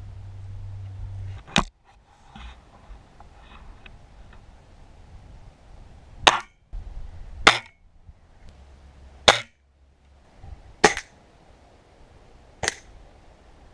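Gamo break-barrel spring air rifle firing six shots, each a single sharp crack, the shots spread unevenly, with two about a second apart in the middle.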